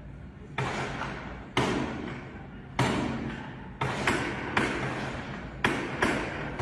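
Gunfire: about eight single shots at irregular intervals, each ringing out with a long echo.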